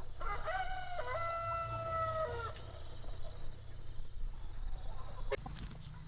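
A rooster crowing once: one long call that rises at the start and then holds, lasting about two and a half seconds, beginning just after the start.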